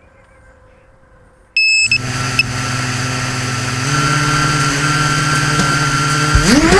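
FPV quadcopter with 2204 brushless motors, heard from its own on-board camera: quiet at first, then a short electronic beep about a second and a half in, and the motors start spinning with a steady idle hum. The hum steps up slightly about four seconds in and begins to rise in pitch near the end as the throttle comes up.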